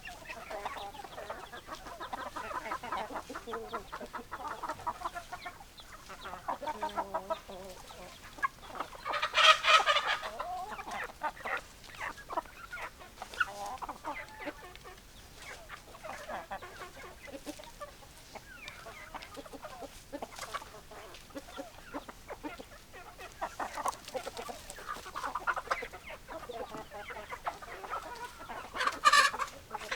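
A flock of chickens clucking continuously. Two louder, longer calls stand out, one about a third of the way in and one near the end.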